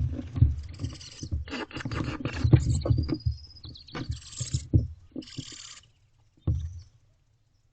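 Barn owlets in a wooden nest box: scuffling thumps and clicks, a few short hissing calls, and a thin high twittering note about three seconds in. The sounds stop abruptly near the end.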